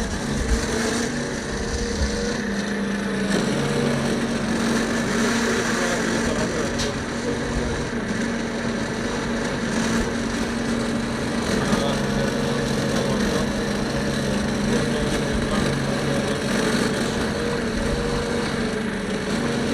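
Fishing boat's engine running steadily at a constant pitch.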